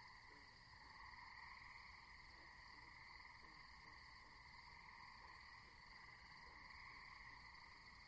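Faint night-time nature ambience: a steady insect chorus, with soft low calls repeating about once a second.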